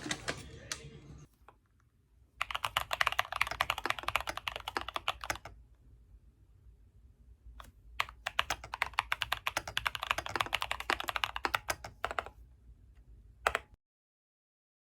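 Typing on a computer keyboard: two long runs of fast keystrokes separated by a pause with a single click, then a short final flurry, and it stops abruptly near the end.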